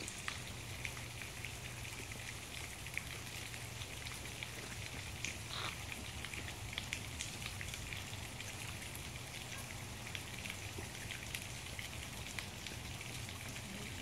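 Faint steady outdoor background: a soft hiss with a dense patter of tiny ticks throughout, over a low steady hum.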